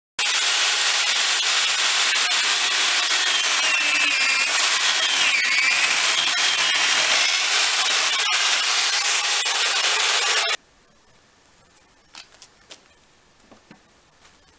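McCulloch chainsaw with a 12-inch bar, pressed into a log by a long lever arm, cutting wood: a loud, steady cutting noise with a faint wavering whine. It stops abruptly about ten and a half seconds in, leaving only a few faint clicks.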